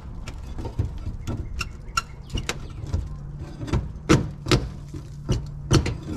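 Irregular sharp knocks and clicks of a hand tool working at screws and nails under a wooden hutch, about one or two a second, some with a metallic ring.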